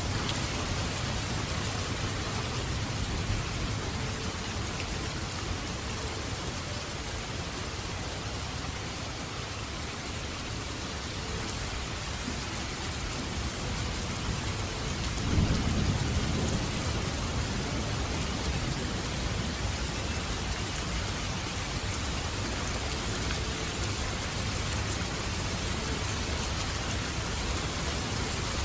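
Heavy rain falling steadily. About halfway through, a low rumble of thunder swells for a couple of seconds.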